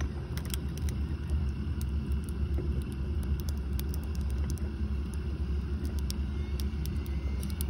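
Boat engine running steadily at low trolling speed, a constant low rumble, with scattered light ticks over it.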